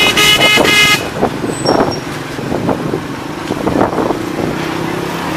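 A vehicle horn sounds twice in quick succession in the first second. Then comes steady street traffic noise with a vehicle engine running.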